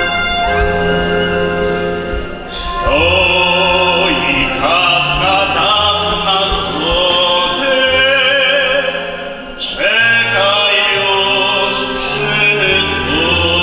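A man sings in a full, operatic folk-singing voice with vibrato, accompanied by accordion and violin. The voice comes in about three seconds in after a short instrumental passage, and breaks off briefly once near the middle before going on.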